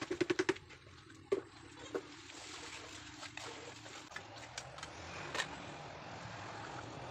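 A quick run of sharp taps at the start as a plastic bucket of mortar is knocked out over the bed for a squat toilet pan, then a few single knocks as the pan is set and levelled, over a steady low hiss.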